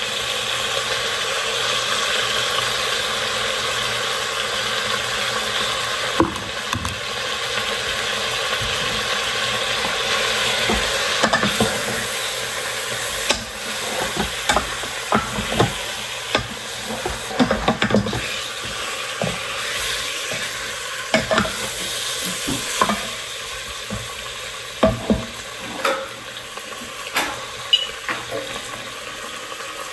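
Beef stew meat browning in a Crock-Pot Express inner pot on the sauté setting, sizzling steadily, while a utensil stirs the meat and now and then knocks and scrapes against the pot.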